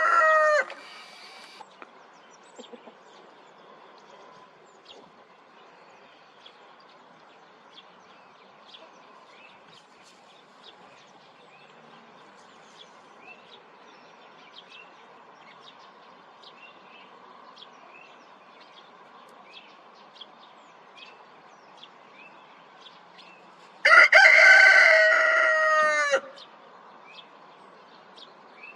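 Rooster crowing twice: a short, clipped crow right at the start and a full crow about two seconds long near the end, its pitch dropping at the tail. Faint chirps from small birds continue in between.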